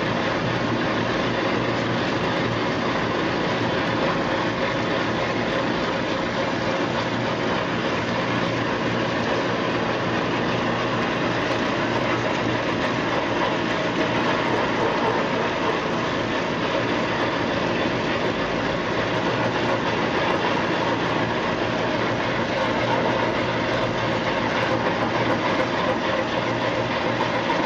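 Nylon-brush onion and potato washing-peeling machine running, its brush rollers churning a load of onions under a water spray jet. A steady, even mechanical noise with a low hum that does not change.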